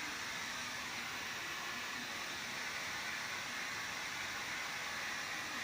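Handheld hair dryer running steadily, a constant airy hiss with a faint hum underneath.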